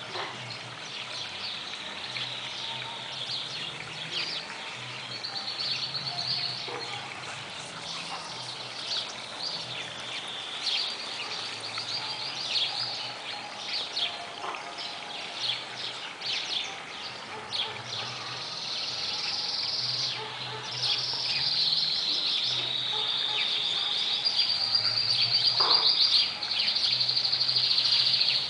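Small birds chirping and trilling in a dense chorus of quick high notes, growing louder in the last third.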